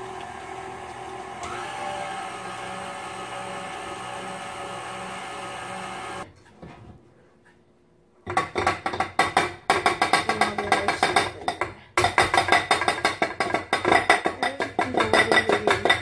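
A stand mixer's motor runs steadily for about six seconds, picking up speed about one and a half seconds in. After a short pause, upbeat music with a busy percussive beat plays through the rest.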